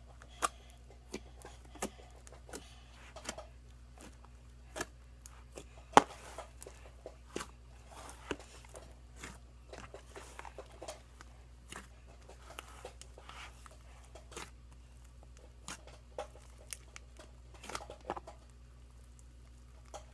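Hands kneading and stretching a large mass of mixed slime, giving irregular sticky clicks and pops, the loudest about six seconds in, over a steady low hum.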